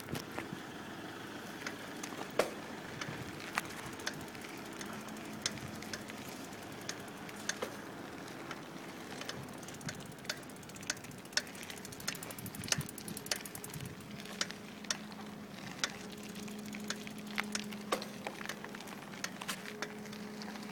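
Knocking in a bicycle's rear wheel: sharp, irregular clicks about once or twice a second over a steady rolling noise. The knock comes only when the wheel is under load, the sign of a fault in the rear wheel.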